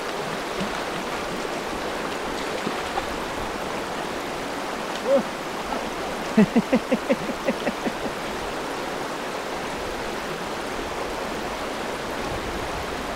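Fast, shallow river water rushing steadily over stones. A person's voice sounds briefly about five seconds in, then a quick run of short voiced pulses follows a second later.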